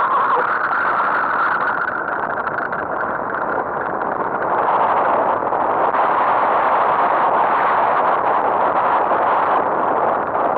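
Steady noise of wind and a tow aircraft's engine at the start of a hang glider's aerotow take-off, growing louder about four and a half seconds in.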